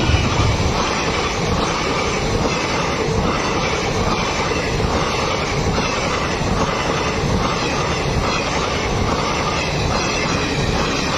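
Intercity passenger train running past at speed: a loud, steady rush of wheels on rail and rolling rumble.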